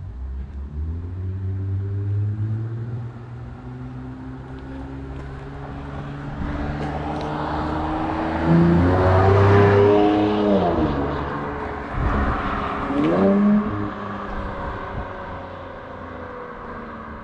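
Infiniti Q50 Red Sport's twin-turbo V6, fitted with a Helmholtz exhaust, accelerating past. Its exhaust note climbs in pitch and grows loudest about nine seconds in, drops as the car goes by, rises once more a few seconds later, then fades as it drives away.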